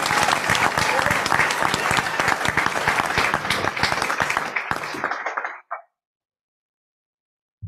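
A roomful of people applauding with steady, dense clapping that dies away about five and a half seconds in. The sound then drops out completely, leaving dead silence.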